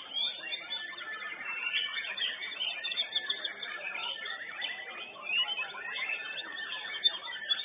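White-rumped shamas (murai batu) singing at a songbird contest: several birds at once, a dense stream of quick whistles, chirps and trills that overlap without a break, with a few sharper notes near the end.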